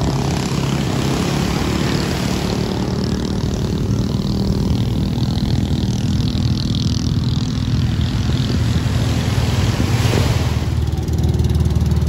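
Engines of bangka outrigger racing boats running at speed, a steady low drone that grows a little louder near the end as a boat passes close. A brief rush of noise comes about ten seconds in.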